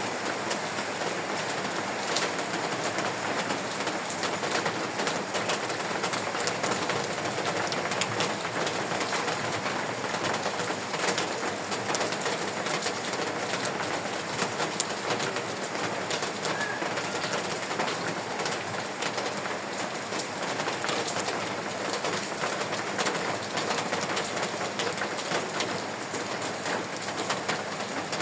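Steady rain falling, an even hiss studded with many small drop strikes.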